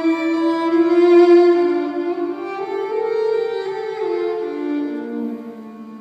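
Violin playing slow, long sustained notes that step between pitches, several notes layered and overlapping at once.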